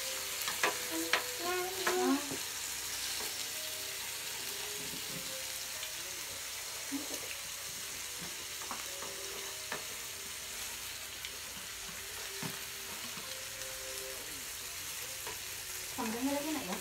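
Beef, lamb and duck sizzling steadily on a hot grill pan, with chopsticks and a fork clicking and scraping against the pan as the meat is turned.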